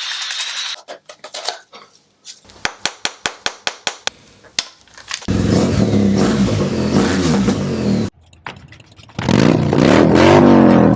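A run of sharp knocks, about four a second, then a BMW R1200GS's boxer-twin engine running through an Akrapovic titanium silencer. It is blipped again near the end, the pitch rising and falling.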